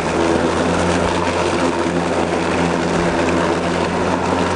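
EGO LM2130 56-volt cordless electric lawn mower running at a steady hum, its blade shredding a thick layer of dry leaves with a constant rushing hiss. The motor goes right through the leaves without straining.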